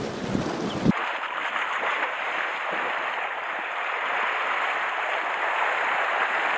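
Wind buffeting the microphone for about a second, then a steady rushing of seawater washing and splashing around shore rocks close by.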